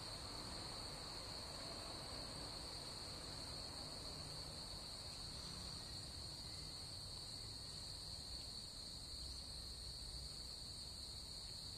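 Faint room tone: a steady high-pitched whine with a fainter one an octave above it, over low hiss.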